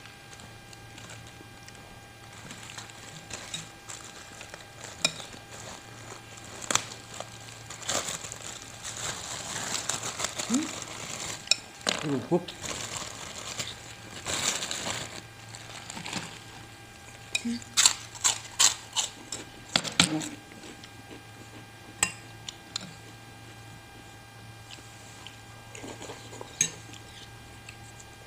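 Eating sounds from a bowl of bakso: stretches of crisp crackling as kerupuk crackers are eaten, and a spoon clinking against the bowl in a quick run of sharp clicks about two thirds of the way in.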